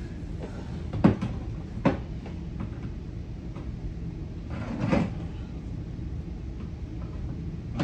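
Couch parts knocking and bumping as they are lifted and fitted together: two sharp knocks about a second apart, then a duller thump around five seconds in, over a low steady rumble.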